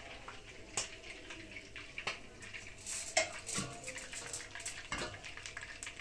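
A metal ladle knocking against a stainless steel pot as bone broth is scooped and poured over pieces of bread, giving a few sharp clinks and some splashing of liquid.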